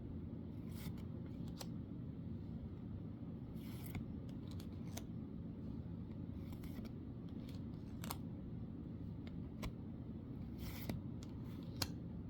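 Trading cards from a booster pack being handled, giving scattered soft swishes and light clicks of card stock sliding and flicking every second or two, over a steady low hum.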